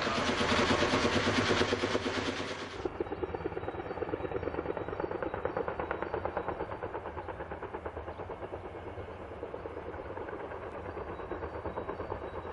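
Kaman K-MAX single-turbine helicopter with intermeshing twin rotors in flight, its rotor blades beating rapidly and evenly. Loud for the first three seconds or so, then it drops suddenly to a more distant, steady pulsing.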